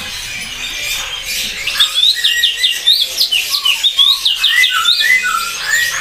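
Young AF super canary chattering its early practice song (riwik): a quick run of short, high rising chirps that starts about two seconds in, with a few lower whistled notes near the end.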